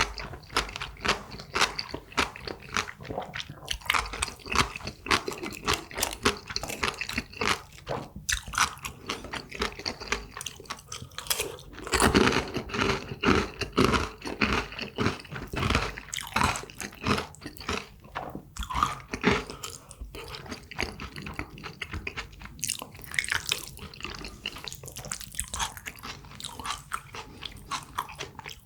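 Close-miked eating sounds: a person chewing and biting food, with crunches and many small wet clicks and smacks throughout, louder around the middle. The food being eaten is jjajangmyeon (black-bean noodles) and crispy tangsuyuk (fried sweet-and-sour pork).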